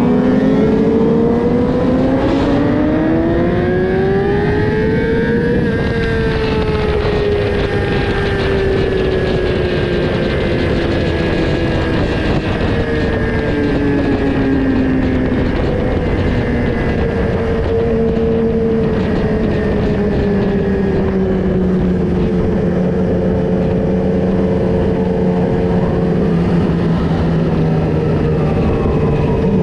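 Sport motorcycle engines on the move: an engine note climbs steadily for about six seconds as the bike accelerates, then drops and settles into a steadier cruise, with other engine notes mixed in over a constant rushing noise.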